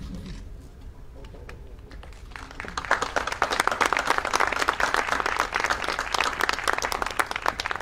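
Audience applauding, starting about two and a half seconds in and stopping near the end.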